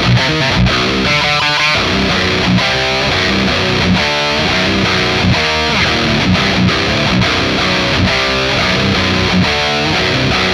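Heavily distorted electric guitar playing a heavy riff through the Overloud TH-U 'Kally' high-gain amp model, with a modelled 4x12 cabinet miked with an SM57 and an MD421. Low chugging notes repeat, broken by short higher chords.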